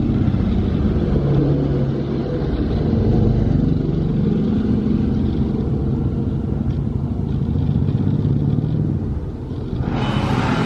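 A motorcycle engine running steadily, its pitch slowly drifting up and down.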